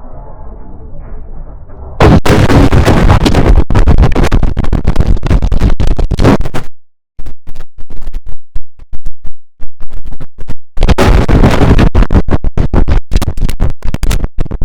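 A computer system sound run through heavy digital effects. For about two seconds it is muffled and dull. Then it becomes loud, clipped, distorted noise chopped by rapid stutter cuts, drops out briefly near seven seconds, stutters sparsely for a few seconds, and comes back full and harsh.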